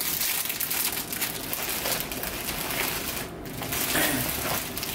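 Clear plastic wrapping crinkling and crackling as it is handled, almost without pause.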